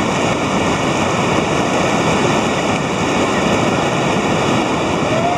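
Whitewater rapids rushing in a loud, steady wash of water noise.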